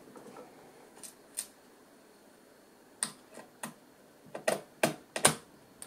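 Short, sharp clicks and taps of a hand screwdriver working on small screws in a laptop's metal-and-plastic underside: a couple about a second in, then a quicker run of them toward the end, the loudest about five seconds in.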